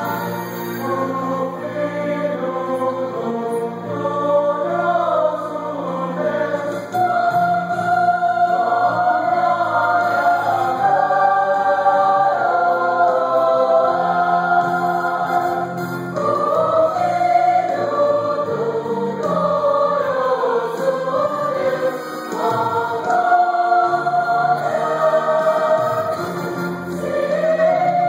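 Mixed choir of women's and men's voices singing a sacred cantata in parts, sustained notes moving from chord to chord.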